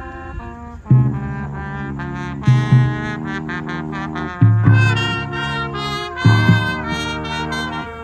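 Marching band brass section playing loud, sustained chords with heavy low brass. After a quieter first second the full band comes in on a loud accented chord, with more accented hits every couple of seconds.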